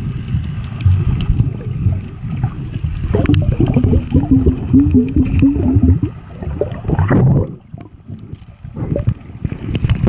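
Underwater noise on a waterproof compact camera's microphone: a dense, low sloshing rumble of water moving against the submerged camera. A wavering low hum runs for a few seconds in the middle, and the rumble dips quieter about three quarters of the way through.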